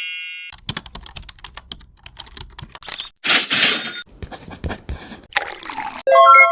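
Computer keyboard typing sound effect: rapid, irregular key clicks. A short burst of hiss breaks in about three seconds in, and a run of chime notes begins near the end.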